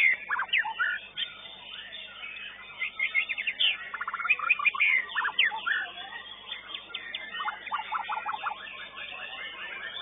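White-rumped shama (murai batu) song: quick runs of rapid trilled notes and sharp chirps, coming in bursts, with a longer fast trill a little past the middle.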